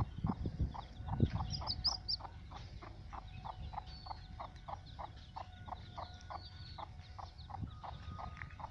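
Mother hen clucking in a steady run of soft, rapid clucks, about four a second, as she leads her chicks, with a few high chick peeps about one and a half to two seconds in. A single soft thump comes about a second in.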